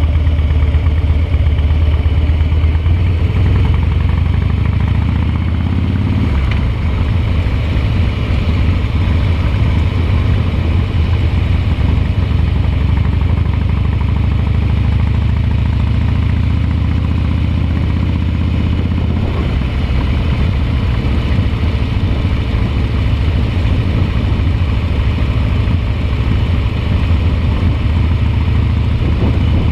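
Harley-Davidson V-twin motorcycle engine running under way on the open road. Its pitch climbs as it pulls and then drops about six seconds in and again around nineteen seconds, as with gear changes or easing off the throttle.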